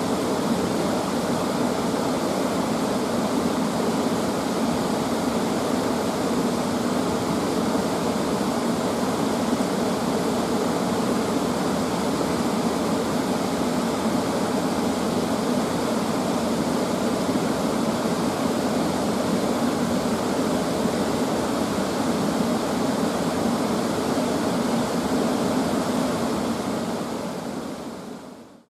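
Steady rushing of water in a mountain stream, an even noise without any rhythm, fading out over the last two seconds.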